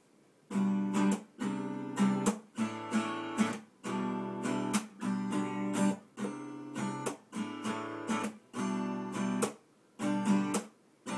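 Cutaway acoustic guitar strummed in a rhythmic chord pattern, starting about half a second in, with short breaks between the chord phrases.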